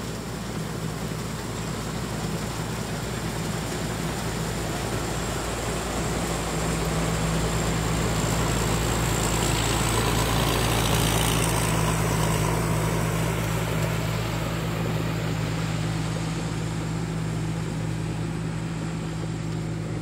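Rice combine harvester's engine running steadily, a low, even drone that grows louder toward the middle and then eases off.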